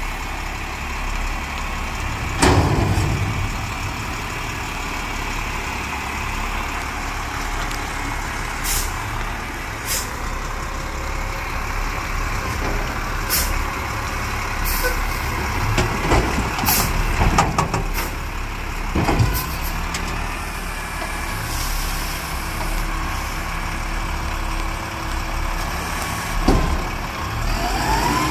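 Front-loader garbage truck's diesel engine running steadily, with a dozen or so sharp metal knocks and clunks as its forks work up to a dumpster. Near the end the engine revs up with a rising whine as the hydraulic arms lift the dumpster overhead.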